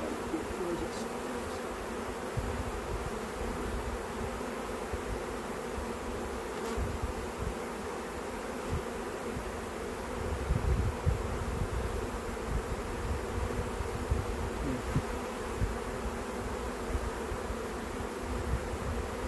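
Honey bee swarm buzzing: a steady, dense hum of many bees. Low rumbling comes and goes underneath, heavier from about halfway through.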